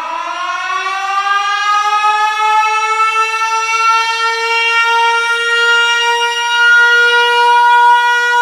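A siren winding up: its pitch rises over the first couple of seconds, then holds one steady note that grows slightly louder.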